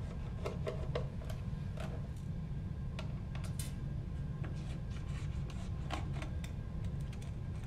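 A small Phillips screwdriver turning out the small screws of a stainless steel printhead cover, heard as scattered faint clicks and scrapes of metal on metal. A steady low hum runs underneath.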